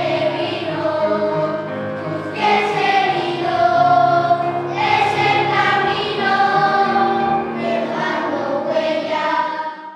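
Children's choir singing, the voices holding long sustained notes; the singing cuts off abruptly at the end.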